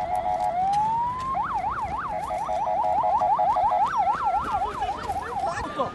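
Electronic vehicle siren changing patterns: a brief two-tone warble, a rising wail, then rapid up-and-down yelp sweeps that speed up and slow down.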